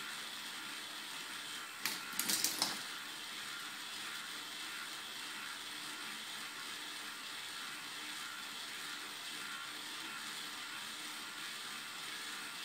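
K'Nex ball lift running with a steady plastic whir of its gears and track. About two seconds in comes a short rattling clatter of plastic as a ball drops into the lift.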